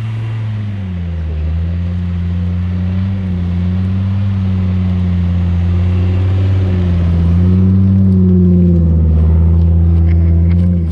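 4x4 truck engine running under load, its pitch sagging about a second in and then rising and falling gently as the revs change.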